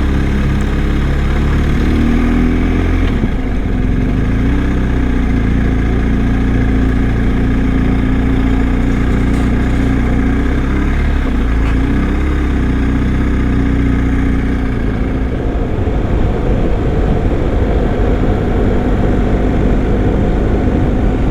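BMW R1250 motorcycle's boxer-twin engine running as the bike is ridden on the road, with wind rushing steadily past the microphone. The engine note rises and falls briefly a few times, around two seconds in and again near the middle.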